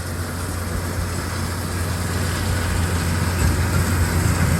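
Tractor engine running steadily with a low hum as it drives the baler, growing slightly louder, with no clunking to be heard.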